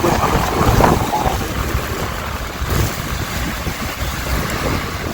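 Wind buffeting the microphone aboard the Maid of the Mist tour boat under way, over a low steady rumble of the boat and water.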